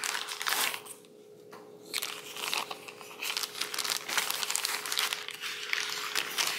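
Clear zip-top plastic bag crinkling as a cardboard backing board is handled and worked out of it, in irregular rustles with a brief lull about a second in.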